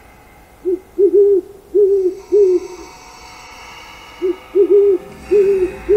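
Owl hooting: two runs of about four short hoots each, the second run starting about four seconds in, over a faint steady background.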